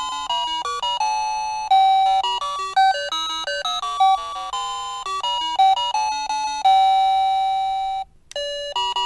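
Ang USA wireless doorbell's plug-in receiver playing an electronic chime melody, one note after another, ending on a long held note. After a brief break about eight seconds in, another tune starts.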